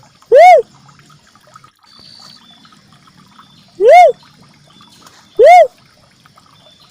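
Cuckoo-dove (uncal merah) call played as a bird lure: three single notes, each rising then falling in pitch, one near the start and two more about four and five and a half seconds in.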